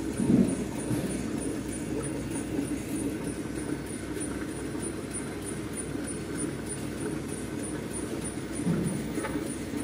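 Alcohol prep pad packing machine running, a steady low mechanical drone with a faint high tick repeating evenly a couple of times a second. A brief low bump just after the start and another near the end.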